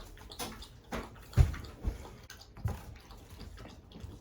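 Knocks and clatter of flat-pack furniture panels being fitted and pushed together, five or so sharp knocks in a few seconds with the loudest about a second and a half in.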